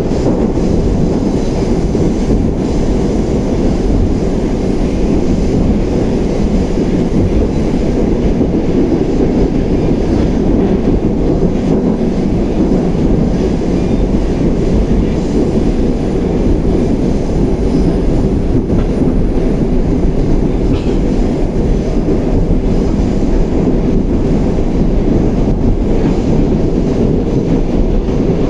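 Interior running noise of an 81-760A/761A "Oka" metro car moving through a tunnel: a loud, steady, low rumble with no breaks.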